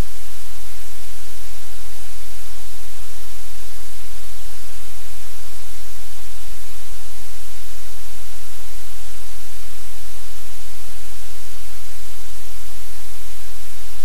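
Loud, steady hiss like static, unchanging throughout, with a constant low hum beneath it.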